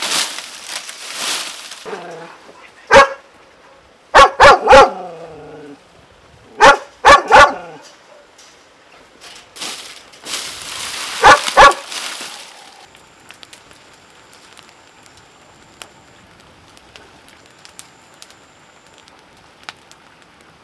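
A dog barking: nine short, sharp barks in quick groups of one to three, over the rustle of dry palm fronds being handled.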